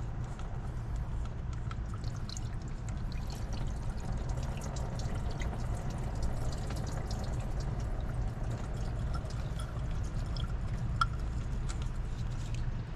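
Engine coolant trickling and dripping steadily from the loosened thermostat housing into a catch container, with a few light clicks scattered through.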